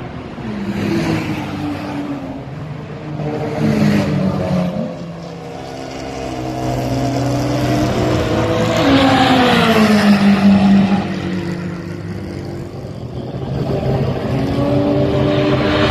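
Porsche race cars running past on the circuit, several engines overlapping. Their notes rise and fall with the passes and gear changes, loudest about ten seconds in and again near the end.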